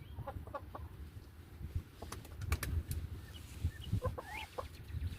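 Chickens clucking in short, scattered calls, with a few sharp taps about halfway through.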